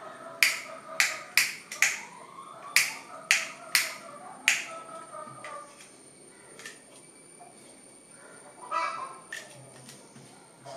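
Anchor Penta modular rocker switch clicked on and off by hand, sharp plastic clicks about twice a second, thinning out after about five seconds. Near the end comes a brief crinkle of plastic packaging.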